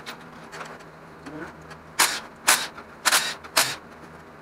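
Blue cordless power tool run in four short bursts, starting about two seconds in and roughly half a second apart, backing out the 8 mm valve cover and rocker arm bolts.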